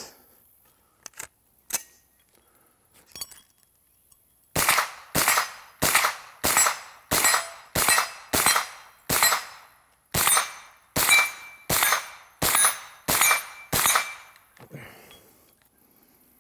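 Wilson Combat AR9-G 9mm carbine firing about fifteen semi-automatic shots at an even pace of a little under two a second, some followed by the brief ring of a steel plate target. A few light handling clicks come before the string. The firing stops on another failure to fire, which the shooter puts down to a hard primer on Wolf steel-case ammunition or a light firing-pin strike.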